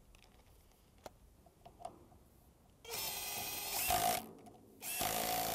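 Cordless power driver run in two short bursts, the first about a second and a half long and the second under a second, fastening a height-sensor paddle's hardware. A few faint clicks of handling come before it.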